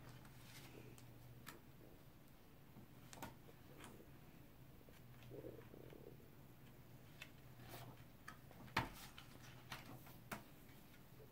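Pages of a large paper picture book being flipped by hand: quiet, scattered paper taps and flaps, several close together in the second half with the loudest about nine seconds in, over a faint steady hum.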